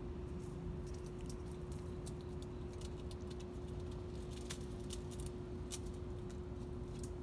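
Faint, irregular crackling and ticking of leaves and twigs as a cat moves through the shrubbery, over a steady hum.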